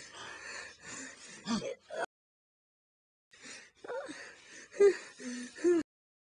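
Short gasps, breaths and effort cries from a voice actor, cut into two clipped bursts with a dead-silent gap between them.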